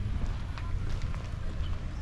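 Wind buffeting the microphone with a steady low rumble, and footsteps of someone walking as scattered light clicks.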